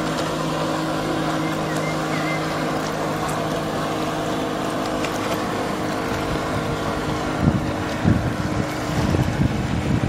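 Motorboat engine running steadily at speed, with water rushing past. From about three quarters of the way in, wind gusts buffet the microphone.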